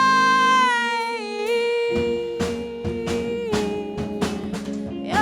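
Live band music: a singer holds a long high note that slides gently downward over a lower sustained note, then drum hits come in at a steady beat about two seconds in.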